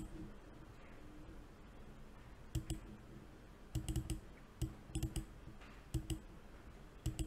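A computer mouse clicking several times, some clicks in quick pairs or short clusters, over a faint steady hiss.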